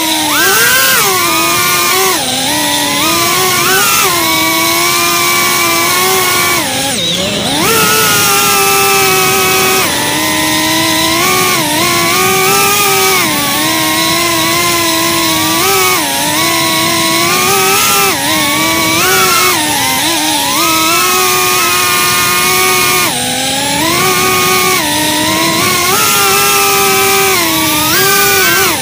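FPV quadcopter's brushless motors and propellers whining, recorded by its own onboard camera. The pitch steps up and down with the throttle. About seven seconds in it drops sharply, then climbs back.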